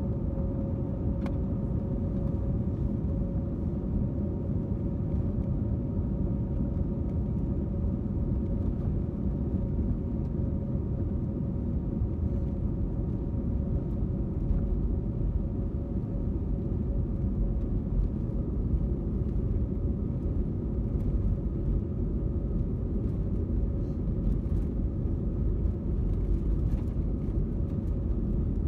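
Airliner's jet engines running steadily, heard from inside the passenger cabin as a constant low rumble with a steady hum over it, while the plane rolls along the runway.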